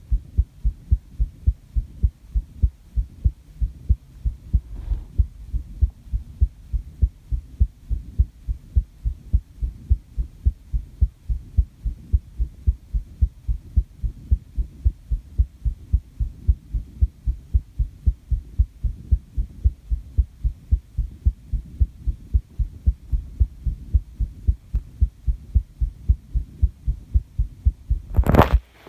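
Human heartbeat at rest, recorded close up: a steady, regular train of low lub-dub thuds. Near the end comes one brief, loud rustle.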